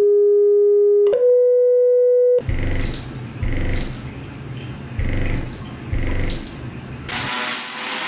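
Loud steady electronic tones holding one pitch, then stepping lower and then a little higher, cutting off about two and a half seconds in. After that a vehicle on the move with an outside-mounted camera: a low rumble with uneven wind buffeting on the microphone, turning to a steady hiss near the end.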